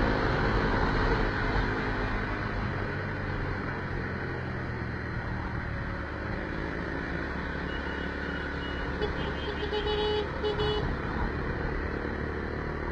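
Motor vehicle engine running steadily with road and traffic noise, and a few short beeps about nine to eleven seconds in.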